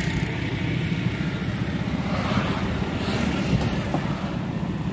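Steady low rumble of roadside traffic mixed with wind buffeting the microphone.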